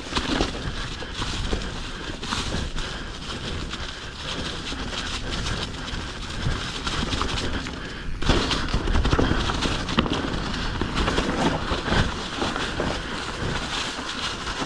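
Mountain bike ridden down a rough trail, heard from a bike-mounted camera: steady tyre and trail noise full of rattling clicks and knocks, with wind buffeting the microphone. There is a brief lull about eight seconds in, then a loud knock.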